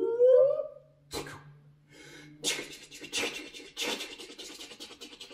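Two people making vocal sound effects with their mouths: a rising voiced glide that stops within the first second, a short breathy burst, then from about halfway a hissing, breathy mouth noise in three or four surges, made through hands cupped around the mouth.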